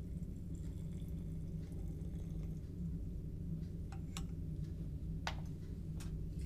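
Liquid poured from a glass beaker into a round-bottom flask, a faint trickle, followed by a few sharp light clinks of glassware being set down and handled from about four seconds in. A steady low hum runs underneath throughout.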